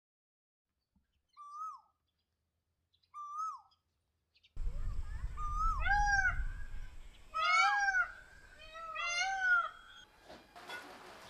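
A bird calling repeatedly in arching, hoot-like notes: two faint calls, then louder ones with a low rumble underneath from about four and a half seconds in. A steady rain-like hiss begins near the end.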